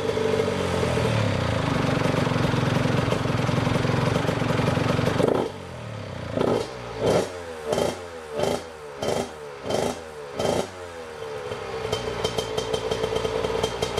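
Honda CR85 85cc two-stroke single-cylinder dirt bike engine on its stock exhaust, held at high revs. About five seconds in, the throttle snaps shut and the engine gives about seven quick throttle blips roughly two-thirds of a second apart, then settles back into a steady, crackly idle.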